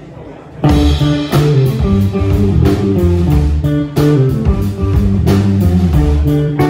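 A live rock band with electric guitars, bass and drums comes in suddenly about half a second in and plays on at a steady beat.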